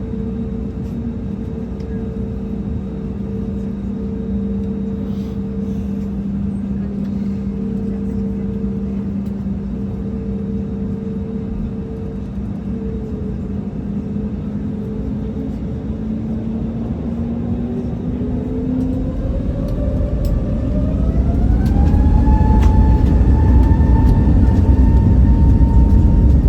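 Airbus A320neo jet engines heard from inside the cabin, running steadily at first. About two-thirds of the way in, the engines spool up: their whine rises in pitch over a few seconds, gets louder, and then holds at the higher setting.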